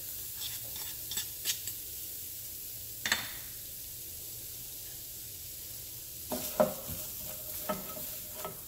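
Diced onion sizzling in hot oil in a stainless steel skillet, with light clicks as the pieces land in the first second or so and one sharp click about three seconds in. In the last couple of seconds a wooden spoon stirs the onion, knocking and scraping against the pan.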